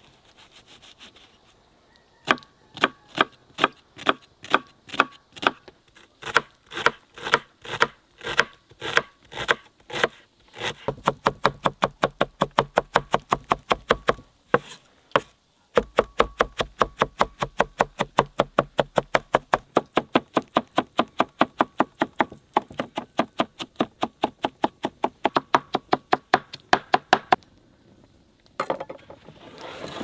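Large kitchen knife chopping onion on a wooden cutting board: steady strokes about two a second, then rapid mincing strokes from about halfway in, with a brief pause, stopping a few seconds before the end.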